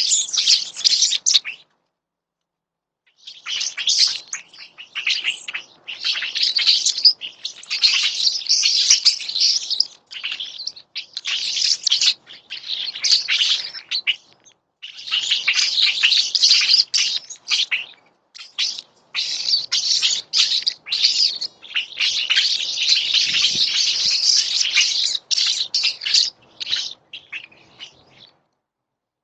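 Small wild birds chirping and chattering in dense, overlapping bursts of high calls, breaking off completely for about a second and a half near the start and briefly near the end.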